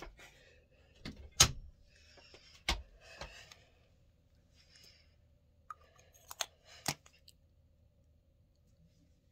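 Small makeup products being handled: a handful of sharp clicks and knocks, the loudest about a second and a half in, with light rustling between them.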